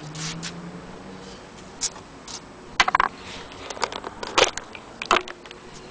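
Irregular clicks and taps, a few sharper ones in the second half, over a faint hiss, with a low steady hum in the first second.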